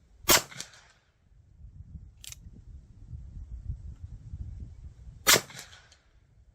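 Two shots from a .45 Colt single-action revolver firing 250-grain lead cowboy loads, about five seconds apart, each with a short echoing tail. A sharp click sounds between the shots.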